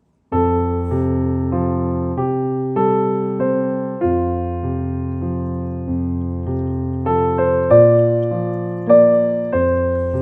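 Background piano music: a gentle keyboard melody over sustained chords, each note struck and fading, the notes changing every half second or so, starting almost at once.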